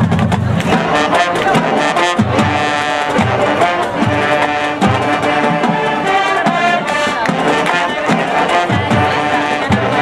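High school marching band playing its field show: brass section with drums, over a regular low beat about once a second.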